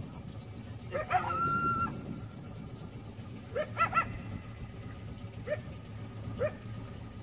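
Coyote giving an alert, barking repeatedly: a bark about a second in that runs into a short held howl, a quick run of three barks near the middle, then two single barks.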